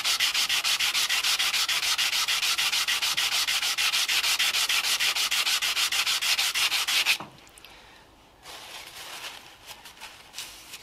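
Edge of an acrylic sheet rubbed fast back and forth on wet P400 abrasive paper laid flat, a rapid rhythmic scraping hiss, to true up a low spot on the edge before gluing. The rubbing stops abruptly about seven seconds in, leaving faint handling sounds.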